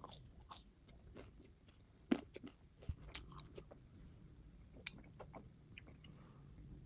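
A person chewing and crunching food with mouth close to the microphone, sped up to double speed: scattered crisp crackles, with one sharp loud crunch about two seconds in.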